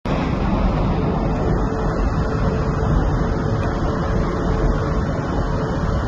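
Steady, low rumbling background noise with no gull calls.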